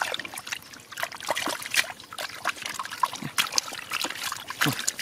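Bare hands groping and digging in shallow muddy water: irregular small splashes, squelches and drips.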